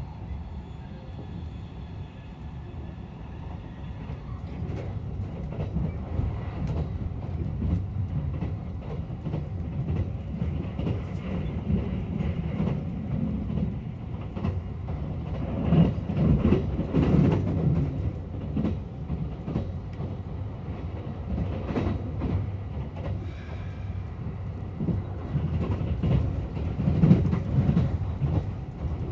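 Running noise of the Kuroshio limited express heard inside the passenger car: a steady low rumble of wheels on rail, with rail-joint clicks and louder swells around the middle and near the end.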